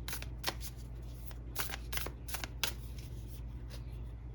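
A deck of oracle cards being shuffled by hand: a quick, irregular run of card flicks and slaps, over a steady low hum.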